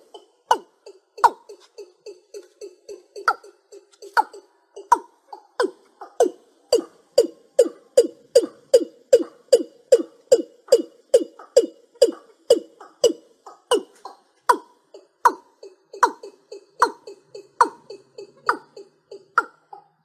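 Watercock calling: a long, even series of short, low, falling notes, about three a second, with higher notes mixed in every second or so.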